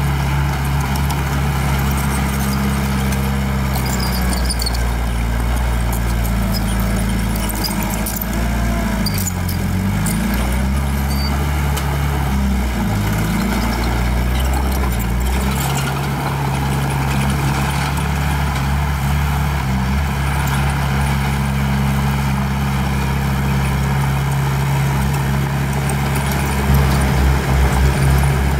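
Diesel engine of heavy earthmoving machinery running steadily, its pitch sagging and recovering twice partway through, as it does under load.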